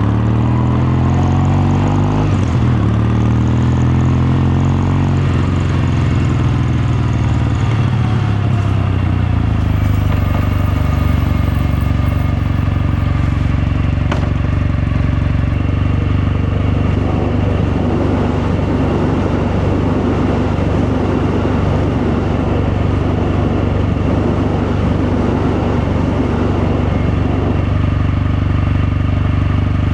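Kawasaki Meguro K3's air-cooled parallel-twin engine and exhaust under way. It pulls up through the revs with a gear change about two seconds in, then runs on at a steady cruising speed.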